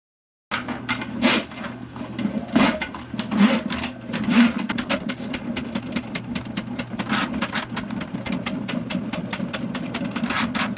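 Electric drain cleaning machine running, its motor humming steadily while the spinning cable clatters with rapid clicks as it works through a food-clogged drain line. It starts about half a second in.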